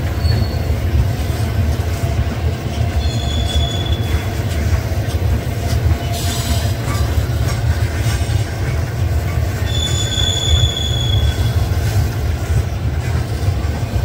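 Loaded steel ore hopper cars rolling past on the rails: a steady heavy rumble of wheels and trucks, with thin, high wheel squeals about three seconds in and again around ten seconds.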